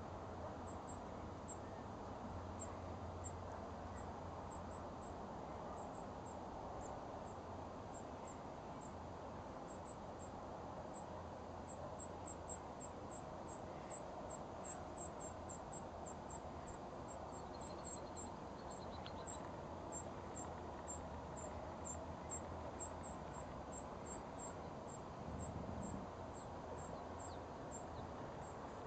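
Insects chirping in rapid, very high, short pulses that go on throughout, over a steady low outdoor background rush.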